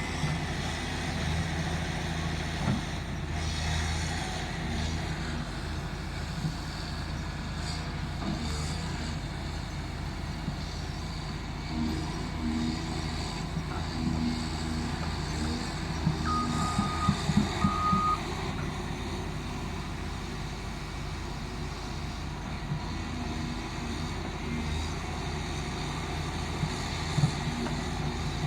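Excavator's diesel engine running steadily under work. About two-thirds of the way through, a travel/backup alarm gives a couple of short high beeps, with a few sharp knocks around the same moment.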